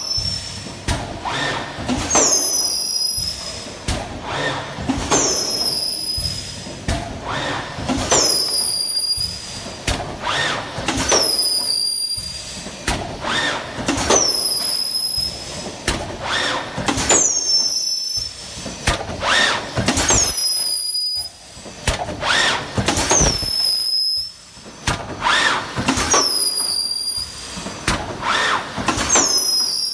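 WM FC 780E in-mould thermoforming machine running in production, cycling about every two and a half seconds. Each cycle brings a clatter from the press and a pair of high squeals that fall in pitch.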